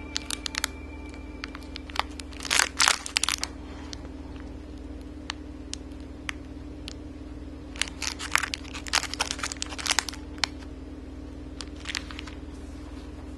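Clear plastic packet of jelly beans crinkling in the hands in short bursts of crackles, loudest about two and a half seconds in and again from about eight to ten seconds in, with scattered single ticks between, over a steady low hum.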